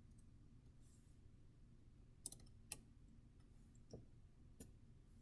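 A few faint, short plastic clicks, about four in the second half, as a laptop keycap and its switch are lifted off a membrane keyboard; otherwise near silence.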